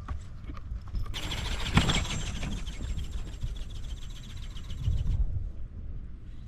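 Wind buffeting the microphone, over which the Kestrel140 ornithopter's geared brushless motor and flapping film wings run with a steady high whine and rapid rhythmic beats from about a second in. The sound cuts off suddenly near the end as the flapping stops for a glide.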